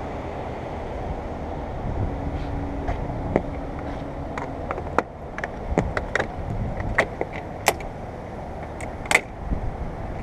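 Irregular sharp clicks and snaps of plastic windshield-molding clips and trim being pried off and handled. They start a couple of seconds in, about a dozen of them, over a steady low background noise.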